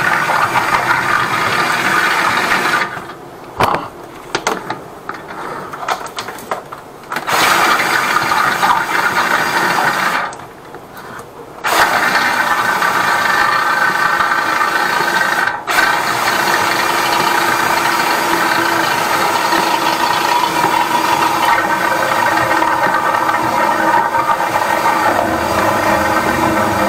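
Electric flexible-shaft drain-cleaning machine running, its spinning cable rattling inside a blocked drain pipe as the clog is being cleared. It cuts out twice, for a few seconds about three seconds in and again briefly about ten seconds in, then runs on steadily.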